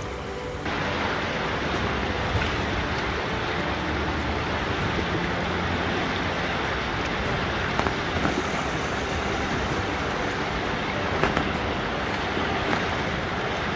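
Steady rushing of a fast river's current, with water sloshing in a plastic gold pan being swirled at the river's edge and a few light clicks.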